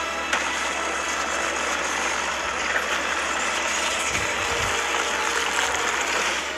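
Film sound effects of Shimo's freezing-breath blast striking the city: a loud, dense, steady rushing noise with a low rumble under it.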